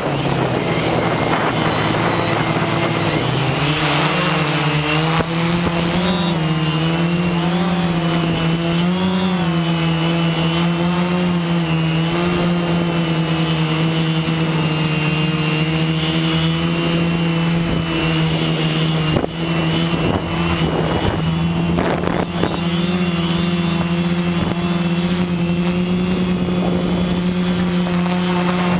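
Multirotor drone's electric motors and propellers buzzing, heard from the camera on the drone itself. The pitch wavers up and down between about four and eleven seconds in as the motors change speed, then holds steady.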